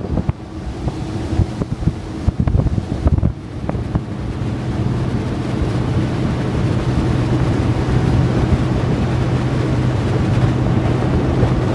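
Wind buffeting the microphone in gusty rumbles for the first few seconds. Then, from about four seconds in, a boat's engine runs with a steady drone, with wind and water beneath it.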